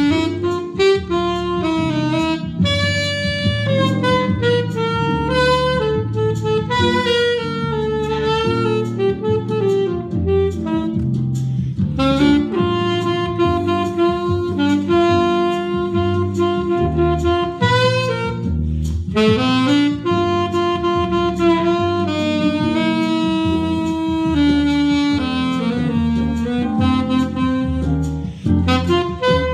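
Alto saxophone improvising a jazz line: runs of quick notes in the first half, then longer held notes.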